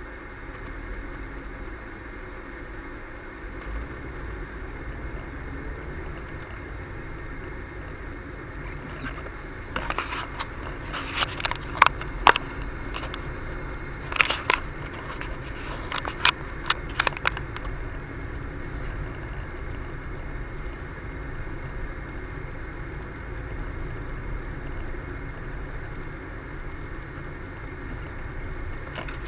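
Steady road and engine noise inside a moving car, picked up by a dashcam's microphone, with a run of sharp clicks and cracks from about ten to seventeen seconds in.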